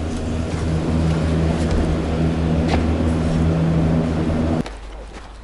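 Cable car machinery humming steadily, heard from inside a gondola moving through the station: a low drone with several steady tones. It cuts off suddenly near the end, and quieter outdoor sound follows.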